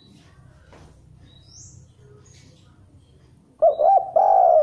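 Spotted dove (derkuku) cooing. About three and a half seconds in, a short run of low bubbling notes is followed by a longer drawn coo near the end. Faint high chirps sound before it.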